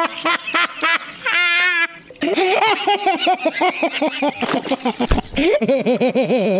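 A cartoon character's voice laughing smugly in quick rhythmic bursts, about five a second, with a wavering trilled note about a second and a half in. A short low thud comes about five seconds in.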